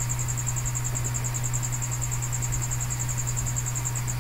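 Steady low background hum with a high, fast-pulsing chirp, about a dozen pulses a second, that stops shortly before the end.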